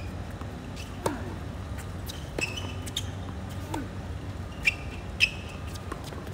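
Tennis rally on a hard court: rackets striking the ball and the ball bouncing, a sharp hit about every second. The two loudest come near the end.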